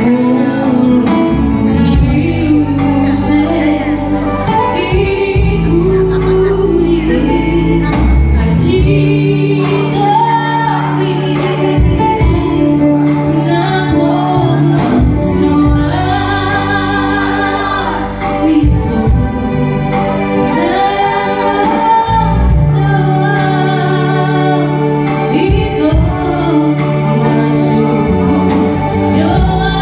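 A woman singing a Batak Toba song into a microphone, her held notes wavering with vibrato, over electronic keyboard accompaniment with sustained bass notes.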